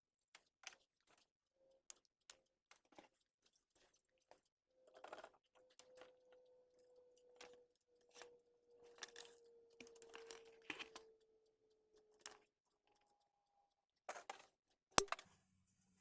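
Quiet handling noises of computer parts being assembled: scattered small clicks, scrapes and rustles. A faint tone sinks slowly in pitch through the middle, and a single sharp click comes near the end.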